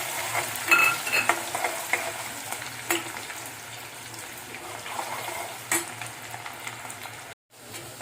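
Chopped onion frying in hot oil in a kadhai: a steady sizzle, with a spoon clicking and scraping against the pan as it is stirred. The sound cuts out briefly near the end.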